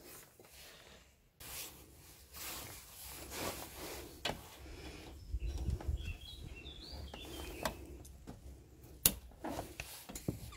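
Hands working a plastic cable tie and pliers at a car radiator: rustling and scraping with a few sharp clicks, the sharpest about nine seconds in. A bird chirps a few times around the middle.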